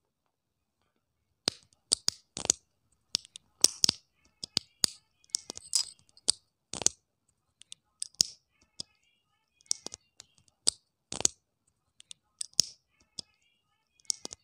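Small plastic building-brick parts clicking and snapping as a minifigure is fitted onto a toy motorcycle: a string of short, sharp, irregular clicks starting about a second and a half in.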